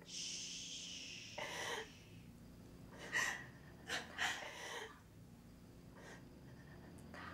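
A person shushing with one long "shhh", followed by a few short, sharp gasps.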